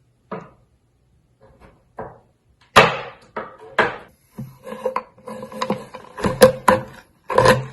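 Knife chopping a block of unsweetened chocolate on a cutting board. The chops start a few at a time, with the loudest about three seconds in, then come closer together in the second half.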